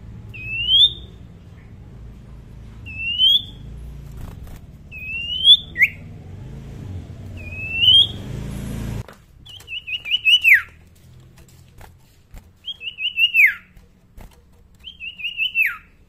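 Caged iora (sirtu/cipoh) calling: four short rising whistles about every two and a half seconds, then three phrases of quick repeated notes, each ending in a falling whistle. A low rumble underlies the first half and cuts off suddenly about nine seconds in.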